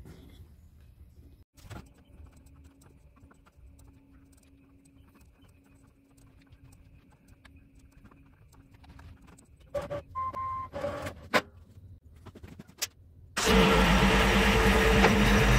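Quiet shop with scattered small clicks and a few short mechanical whirs, then, about thirteen seconds in, the diesel engine of a Kubota B2601 compact tractor comes in suddenly, running loud and steady.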